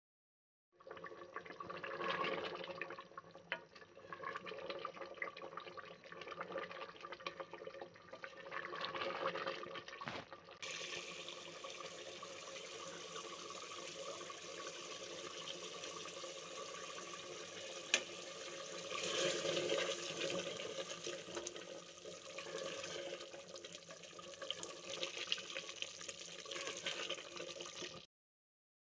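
Wet, watery cooking sounds from an opened pressure cooker of mutton korma as the curry is handled and stirred with a wooden spoon. There is a single sharp click partway through.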